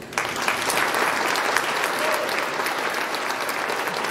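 Audience applauding, many hands clapping at once; it starts abruptly just after the opening and keeps on at an even level.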